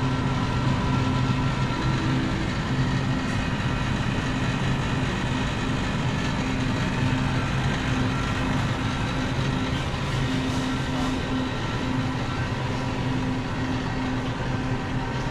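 Steady supermarket ambience: the hum of refrigerated display cases and store ventilation, with a low droning tone that drops out and returns now and then.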